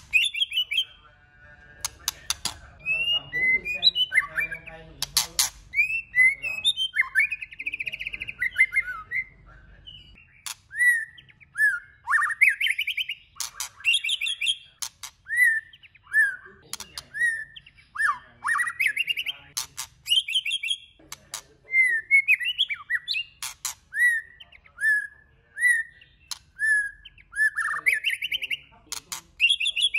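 Male white-rumped shama singing a long, varied song of clear whistled phrases that sweep up and down in pitch, with sharp clicks between phrases.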